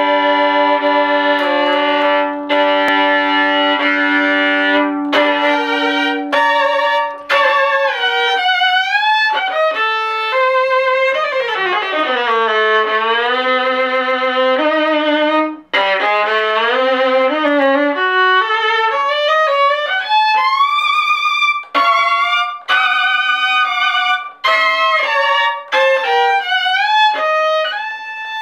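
Solo violin played with a bow. For the first five seconds or so two strings are held sounding together in long notes, then a slow melody follows, with vibrato and sliding notes.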